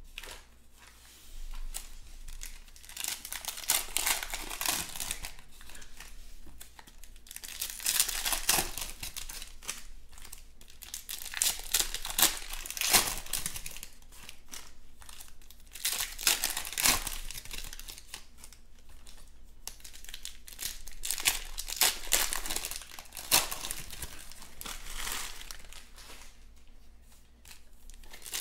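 2020 Panini Chronicles Baseball foil card packs being torn open and crinkled by hand, in repeated bursts of crackling every few seconds.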